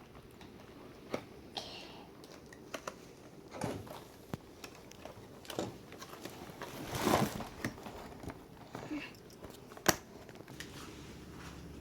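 Handling of a boxed doll and its plastic and cardboard packaging: scattered light clicks and crinkles, with a longer rustle about seven seconds in and a sharp click near the end.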